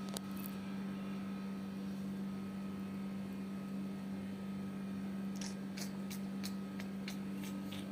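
A steady low hum runs throughout. In the second half, a quick string of about ten short, high ticks comes in.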